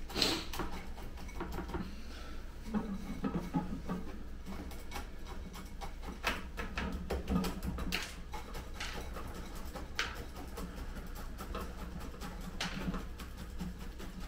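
Granular bonsai substrate being worked in around a tree's root ball with a chopstick: irregular gritty scratching and sharp little clicks, with a few duller knocks, over a low steady hum.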